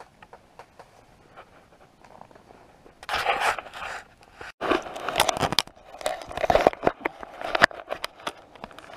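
Quiet for about three seconds with a few faint clicks, then boots crunching and scraping on snow-covered ice with clothing rustling, in quick, irregular steps.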